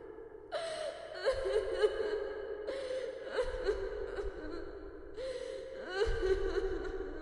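A person crying and whimpering: a few long, high-pitched, wavering cries, each starting abruptly, a new one every two to three seconds.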